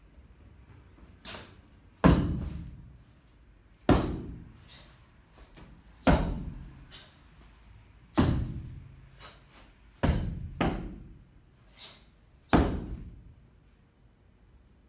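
Six heavy foot stamps on the studio floor during a Baji Quan form, about two seconds apart, each with a short echo, with lighter, sharper strikes in between.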